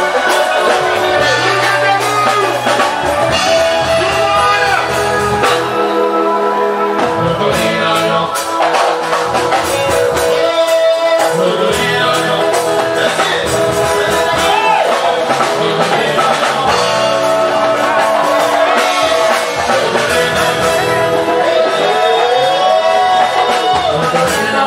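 Music with a singing voice over a steady beat and bass line.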